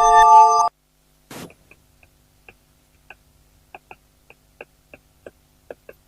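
Music of sustained, bell-like chiming tones cuts off suddenly under a second in. A brief rustle follows, then a string of faint, irregularly spaced clicks, roughly two a second.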